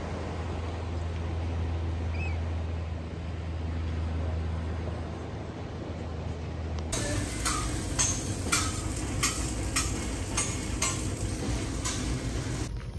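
Wind buffeting the microphone over surf on a sandy beach, a steady low rumble. About seven seconds in it cuts to a diner kitchen: a run of sharp clinks, about two a second, from dishes and utensils at the counter and grill.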